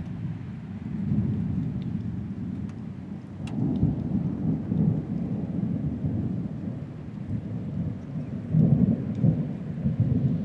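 Thunder rolling and rumbling in a long deep growl that swells three times, loudest near the end, with rain falling underneath.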